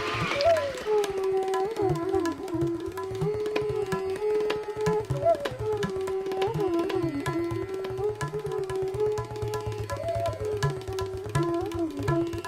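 Hindustani classical music: a bansuri flute playing a held, gliding melody in raga Bhopali, with ornamented turns, over tabla strokes.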